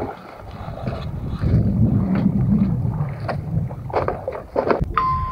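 Small boat moving across open water, with water splashing along the hull, wind on the microphone and a few knocks on the boat. A short beep sounds near the end.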